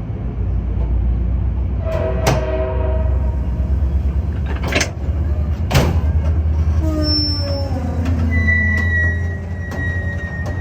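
Commuter train passing close by: a steady heavy rumble with sharp clacks around two and five to six seconds in, tones that slide downward midway, and a thin high squeal near the end.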